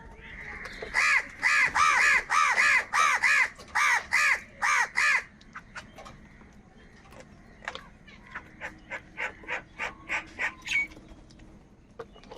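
Crows cawing: a fast run of about a dozen loud, harsh caws, about three a second, followed after a short pause by a quicker run of shorter, softer caws.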